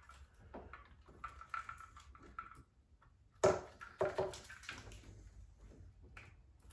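Faint rustling and small clicks of hands working inside a car's rear body panel around an LED side marker and its wiring, with one sharp click or knock about three and a half seconds in and a few smaller ones just after.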